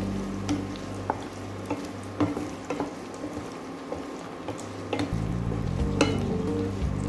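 Chopped onions and garlic frying in oil in a nonstick pan, sizzling as a spatula stirs them and clicks and scrapes against the pan at irregular moments, with one sharper knock about six seconds in. Low background music plays underneath.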